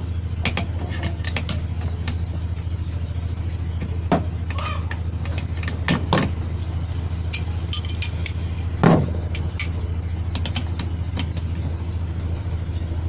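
A steady low engine hum, like a motor idling in the background, with scattered sharp metallic clicks and taps. A louder knock comes about nine seconds in.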